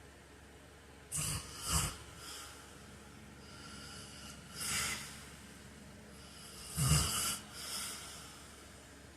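Man snoring in his sleep: a snorting inhale in two quick pulses about a second in, a softer breathy exhale around five seconds, then a louder snort near seven seconds trailing into a smaller one, over a steady faint hiss.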